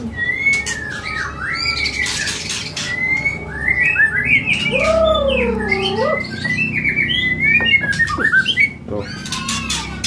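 White-rumped shama (murai batu) singing hard and without a break, a bird in top song form ('gacor'): a rapid string of varied whistled glides and chattering phrases, with a lower swooping whistle about five seconds in.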